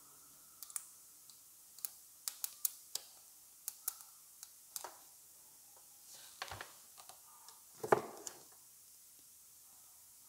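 Irregular sharp clicks and ticks as wire leads from a small battery are tapped and touched against the contacts of a plastic wastegate actuator housing, with two duller knocks about six and a half and eight seconds in.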